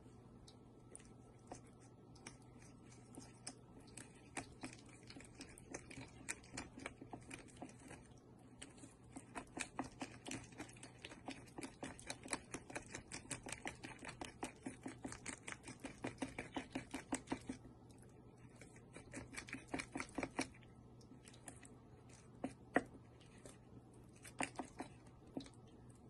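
A miniature wooden spoon stirring a thick mixture in a tiny bowl, clicking and scraping against the bowl's side in a quick run of taps, several a second, densest in the middle and thinning out near the end.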